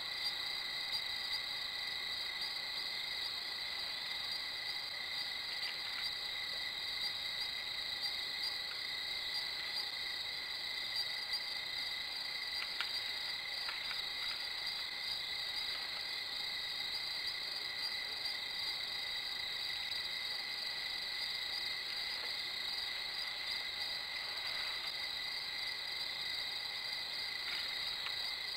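Night chorus of crickets: a steady, unbroken high-pitched trilling.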